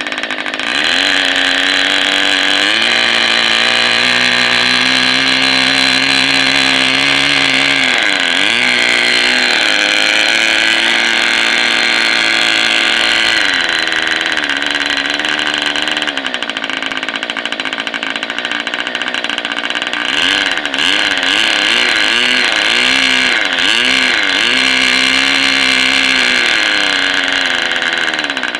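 Raduga-10 model aircraft engine running at high speed on a test stand, spinning its propeller with a buzzing note that steps up about a second in. Its pitch wavers and sags briefly several times, once near 8 s, again near 16 s and repeatedly towards the end.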